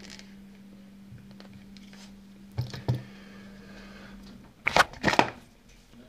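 Small metal lock parts being handled and set down on a workbench mat: a few faint taps, a pair of louder clacks midway, then a quick cluster of sharp clicks near the end.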